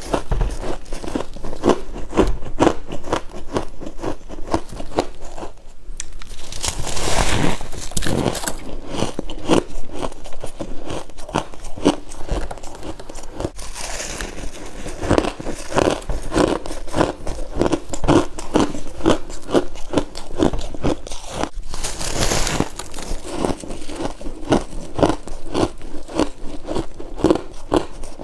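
Freezer frost being bitten and chewed in a rapid run of crunches, with louder stretches of crunching about a quarter of the way in and again about three-quarters through.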